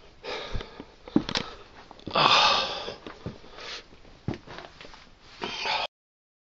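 Close sniffing and breathing with scuffs and a few sharp knocks of feet or hands on rock, in the echo of a small cave; loudest is a long noisy breath or sniff about two seconds in. The sound cuts off abruptly near the end.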